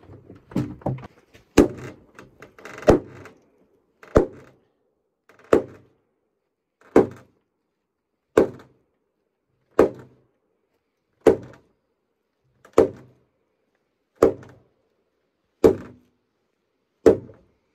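A large wooden mallet striking the end of a squared timber beam to drive a timber-frame joint together. A few irregular knocks come first, then about a dozen evenly spaced heavy blows, roughly one every second and a half.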